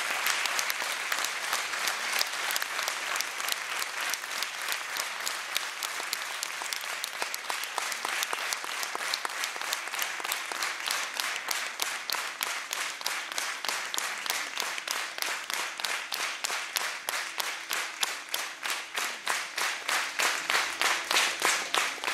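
Audience applauding. The clapping starts scattered, then falls into steady rhythmic clapping in unison at about two to three claps a second, growing louder near the end.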